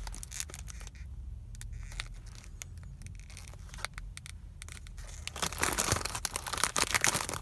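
Foil wrapper of a Pokémon TCG booster pack crinkling as cards are handled: light scattered rustles and ticks at first, then a louder burst of crinkling from about five and a half seconds in.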